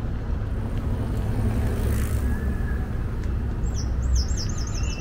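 Steady low rumble of distant traffic. Near the end a small songbird sings a quick run of about six repeated high notes.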